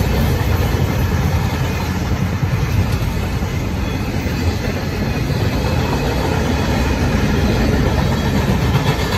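Freight train cars (tank cars, autoracks and covered hoppers) rolling past, a loud, steady rumble of steel wheels on the rails.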